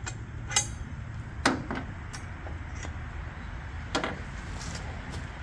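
Three short, sharp metal clanks spread over several seconds as the steel quick-disconnect pins are pulled and the mini excavator's manual thumb is handled.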